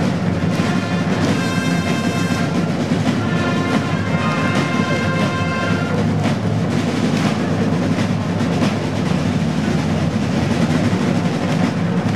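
A corps of side drums playing a steady, continuous roll and cadence. For a few seconds in the first half, higher pitched notes sound over the drums.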